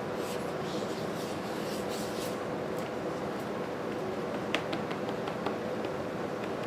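Plastic spreader scraping body filler in quick strokes for about the first two seconds, then a few light ticks and clicks, over a steady background hum.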